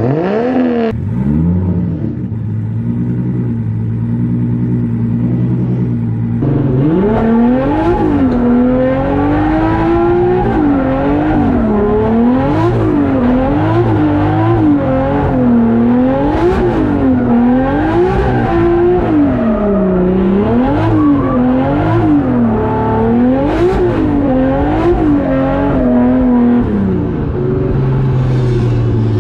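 Toyota 1JZ turbocharged inline-six in a Nissan 240SX, running at a steady low pitch for several seconds, then revved up and down over and over, about once a second, as the car is driven. It settles back to a steady lower pitch near the end.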